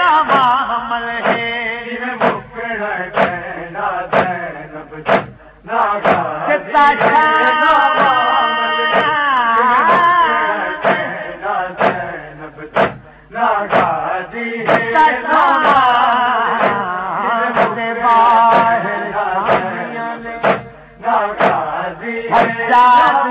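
A Punjabi noha, a Shia lament, chanted by male voices, with sharp strikes of hands beating on the chest (matam) keeping the rhythm about once a second.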